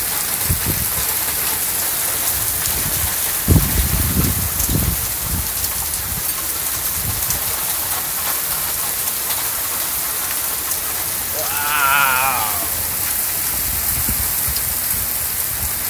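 Heavy rain pouring down steadily in a violent thunderstorm. A few seconds in, strong wind gusts buffet the microphone with low rumbles.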